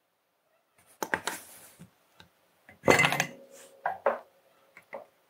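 Several clinks and clatters of hard objects handled on a work surface as a soldering iron is picked up. The loudest clink, about three seconds in, leaves a steady ringing tone that fades out about two seconds later.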